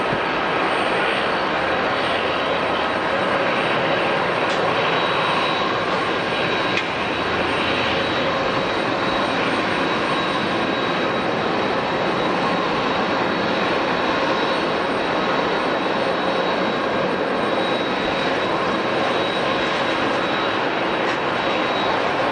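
Fixed-wing aircraft engines running steadily: a continuous rush of noise with a thin, steady high whine.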